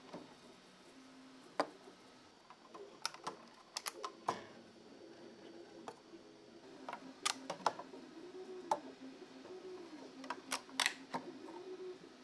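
Hard 3D-printed plastic parts being handled on a flexible steel print sheet, giving sharp clicks and knocks at irregular intervals, some in quick clusters. A faint steady tone runs underneath and wavers up and down in pitch a few times in the second half.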